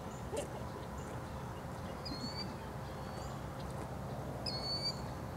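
Outdoor lakeside ambience: a steady low rumble with a few short, high bird chirps, the loudest about four and a half seconds in.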